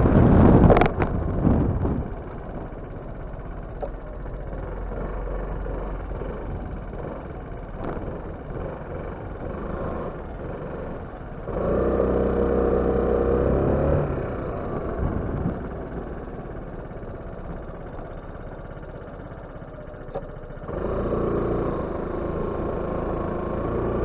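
Yamaha X-Max 250 scooter's single-cylinder four-stroke engine running as the scooter rides along. A loud rush of wind noise comes in the first two seconds. The engine pulls harder twice, briefly about halfway through and again near the end with rising engine tones, and runs quieter in between.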